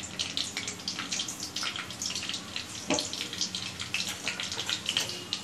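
Cumin and mustard seeds sizzling and crackling in hot oil in an aluminium kadhai: a dense, irregular patter of small pops, with one sharper knock about three seconds in. This is the tempering stage, the seeds frying in the oil before the onion goes in.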